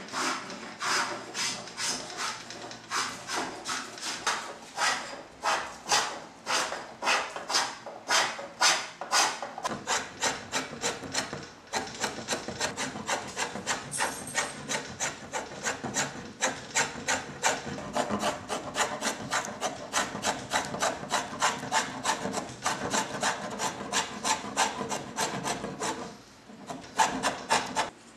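Hand edge tools shaving walnut in repeated rasping strokes, at first about two or three a second. About twelve seconds in, a scorp is pulled through the seat hollow in quicker, closer strokes. Near the end, after a short pause, come a few quick strokes as the scorp's edge is honed by hand.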